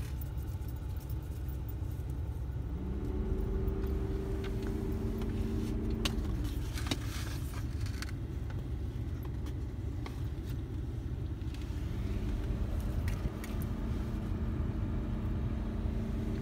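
Steady low engine rumble heard inside a vehicle's cabin. A hum comes in twice, about three seconds in and again near twelve seconds, each time lasting a few seconds. A few sharp clicks and rustles break in along the way.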